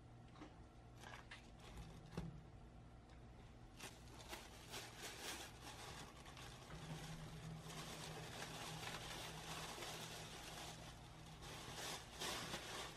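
A few small crackles of the parchment paper lining around a baked sponge cake as it is handled, then from about four seconds in a thin plastic bag rustling and crinkling continuously as the cake is put into it. A low steady hum sits underneath.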